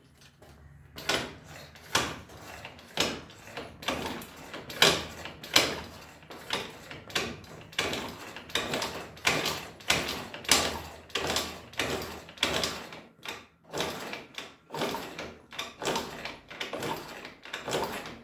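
Kick starter of a 50cc two-stroke scooter worked over and over, about one and a half strokes a second, spinning the engine with the spark plug out, so it turns over without firing.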